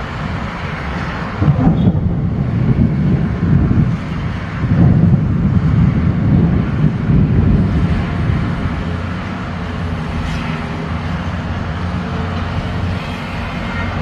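Thunder rumbling in two long rolls, the first about a second and a half in and the second near five seconds, over a steady low hum of road traffic.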